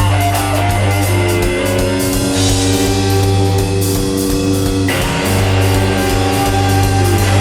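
Live rock band playing an instrumental passage: electric guitars, bass and drum kit, with held chords that change about five seconds in.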